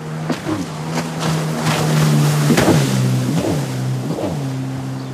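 Boat engine running steadily under a rush of water and wind noise, its pitch swooping quickly up and back down three times in the second half.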